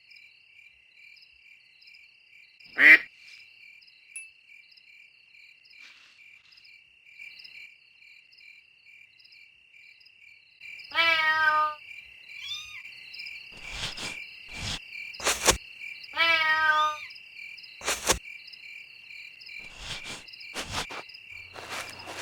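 Crickets chirping steadily as a night-time background. A brief sharp sound comes about three seconds in, two short animal calls come about 11 and 16 seconds in, and a few clicks fall between them.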